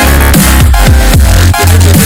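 Loud electronic dance music with a heavy, sustained bass line and a driving beat, in a drum and bass or dubstep style.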